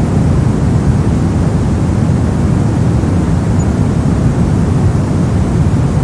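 Steady, unchanging soft noise for baby sleep: a deep, even hiss weighted heavily toward the low end, with little high treble.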